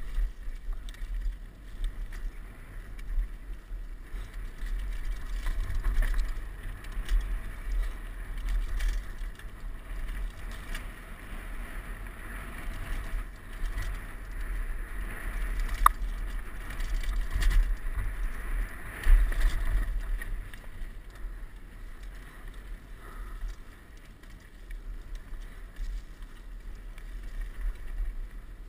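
Downhill mountain bike riding fast over a dirt and rock singletrack, heard through a helmet-mounted camera: steady tyre noise and low wind buffeting on the microphone, with the bike rattling over bumps and a few sharper knocks around the middle.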